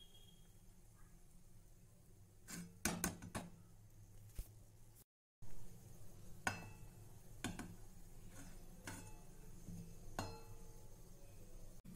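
Steel slotted frying spoon clinking and knocking against a kadai as a fried naan puri is lifted out of the oil and drained: a quick cluster of clinks about three seconds in, then single clinks every second or so. The sound drops out briefly just after the halfway point.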